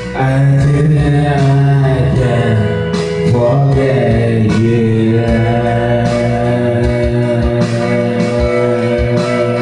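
A man singing a slow ballad into a karaoke microphone over a backing track, holding long notes.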